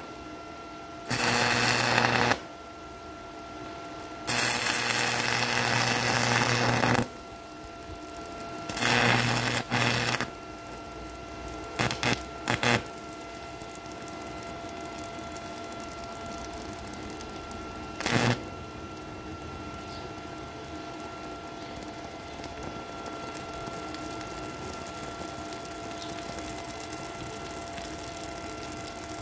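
Stick-welding arc crackling and buzzing in several bursts of one to three seconds, with pauses between them and a few short strikes around twelve and eighteen seconds in. A steady hum runs underneath and is all that is left after the last strike.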